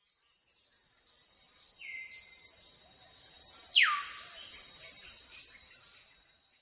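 Steady high-pitched drone of insects, such as crickets or cicadas, fading in at the start and out near the end. About two seconds in and again about four seconds in come two falling whistled bird calls; the second drops further in pitch and is the louder.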